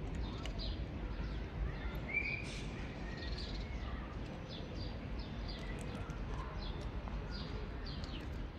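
Small birds chirping: many short, high chirps, several a second, over a steady low outdoor rumble.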